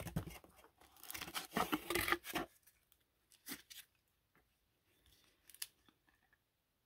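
Stack of trading cards in plastic sleeves sliding and rubbing against each other as they are flipped through by hand. Rustling for the first couple of seconds, then a few faint ticks.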